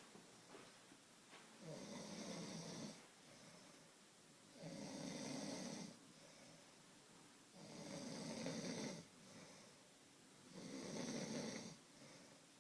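A sleeping person snoring: four snores at a steady pace of about one every three seconds, each lasting a little over a second, with softer breaths in between.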